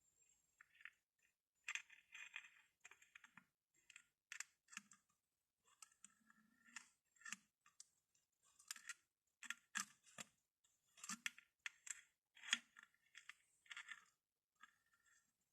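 Glass bottles tapped and clinked, quiet and irregular: a steady string of sharp taps, several of them with a short glassy ring.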